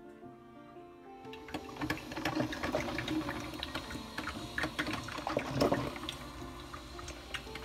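Music fades out about a second in, then a Hamilton Beach 12-cup drip coffee maker gurgles and sputters as it brews, with irregular small pops.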